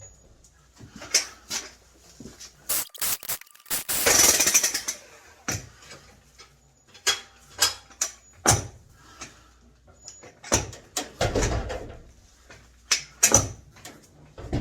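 Jackhammer striking a cast-iron boiler in short, stop-start bursts, the longest and loudest lasting about a second around four seconds in, with separate sharp knocks in between as the iron starts to break.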